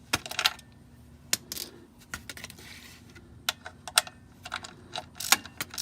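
Ratchet wrench clicking and clinking in short, irregular runs while turning the 17 mm oil drain plug. The clicks come more often in the second half.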